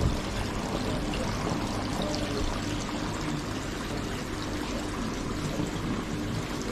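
Water pouring and splashing steadily into a garden koi pond.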